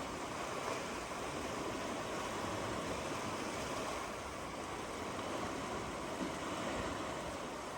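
Steady rushing water, an even wash of noise without separate splashes or surges.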